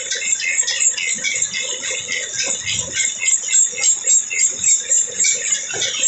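Drill press boring through a steel flat bar with a twist drill, the bit cutting with a high, rattling scrape as steel swarf curls off. The sound pulses at about two beats a second in the second half.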